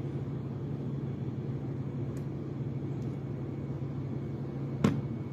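Steady low background hum, with a faint click a couple of seconds in and one sharp tap near the end.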